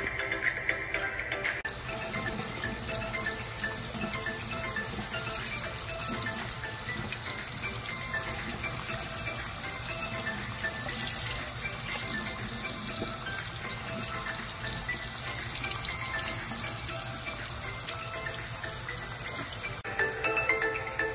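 Tap water running from a faucet into a sink as turmeric roots are rinsed under it by hand, with background music underneath. The water starts about two seconds in and cuts off just over a second before the end.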